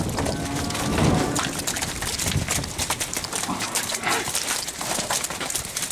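A farm animal gives a short call near the start, over continuous scuffling and clatter.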